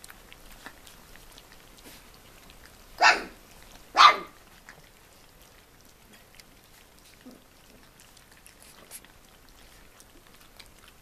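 A dog barks twice, short and loud, a second apart. Underneath, faint wet smacking and clicking of collie puppies eating from a plate.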